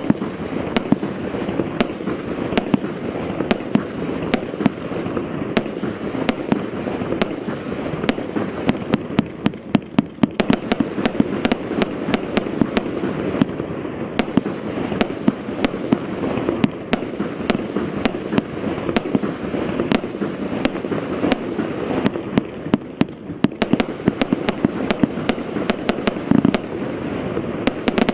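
Evolution 'Vulcan' compound firework cake firing a continuous barrage: many sharp bangs over a dense, unbroken hiss of launches and bursts. The bangs come thickest about ten seconds in and again near the end.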